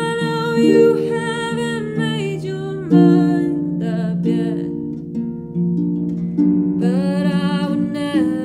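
Harp playing slow plucked chords and bass notes of a ballad, with a voice singing long, wavering melody notes over it in the first few seconds and again near the end.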